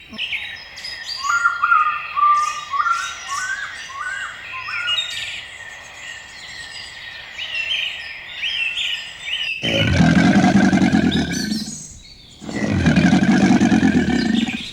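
Songbirds chirping and singing in quick, overlapping calls. Then an abrupt change to two loud, long, low animal calls of about two seconds each.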